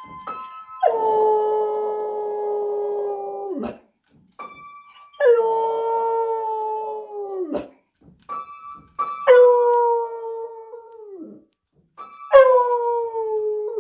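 Beagle pawing the keys of an upright piano and howling along, four times over: a few piano notes, then a long howl that holds its pitch and drops away at the end.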